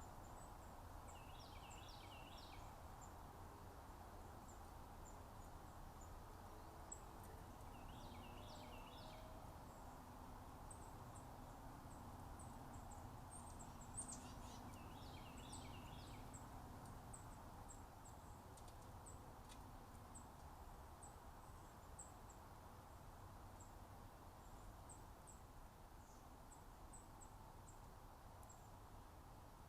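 A small songbird sings three short phrases of quick notes, about a second, eight seconds and fourteen seconds in. Faint, very high ticks are scattered throughout, over a steady low background hum.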